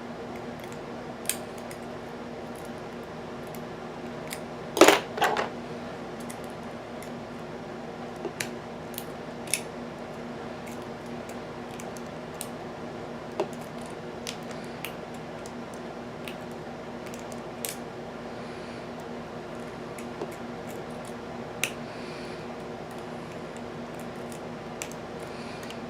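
Scattered small metallic clicks and ticks of a lock pick and tension wrench working the pins of an American Series 700 padlock, with a louder rattling clatter about five seconds in. A steady low hum runs underneath.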